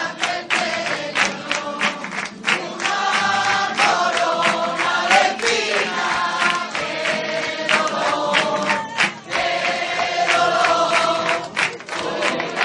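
A group of voices singing a flamenco Christmas song together in long held notes, over Spanish guitar and steady rhythmic flamenco hand clapping (palmas).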